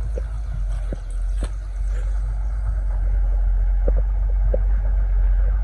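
Excavator's diesel engine running with a steady low rumble, with scattered sharp knocks and clanks at irregular intervals.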